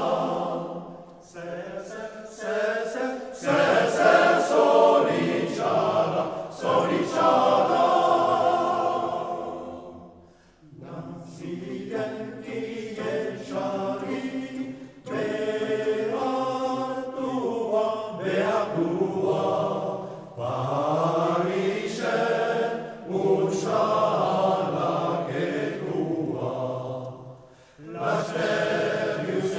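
Basque male voice choir singing a cappella in harmony, in long phrases with short breaks about ten seconds in and again near the end.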